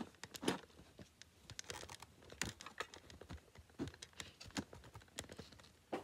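Irregular plastic clicks, knocks and rattles from the parts of a new NERF blaster being handled and pushed together while a piece is forced to fit.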